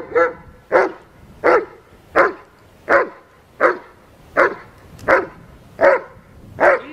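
German shepherd barking steadily at a decoy, about ten loud barks evenly spaced roughly every 0.7 seconds: a guard bark while it holds position at its handler's side in protection work.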